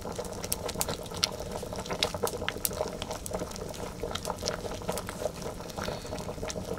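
A metal pot of white liquid boiling over an open wood fire, with a steady bubbling and frequent irregular sharp crackles and pops.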